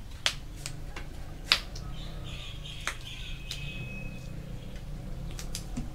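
Scattered small clicks and snaps from hands picking over and breaking up small food ingredients above a plastic colander, the sharpest about one and a half seconds in. A faint thin high tone is held for about two seconds in the middle.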